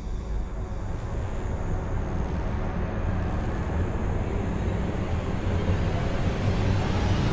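Logo intro sound effect: a deep rumble with a rushing hiss that swells steadily louder, like a jet building up.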